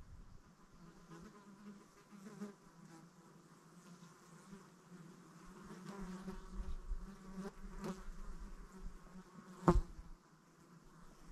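An insect, such as a fly or bee, buzzing close to the microphone, its hum swelling and fading as it moves about. A single sharp click or knock sounds near the end.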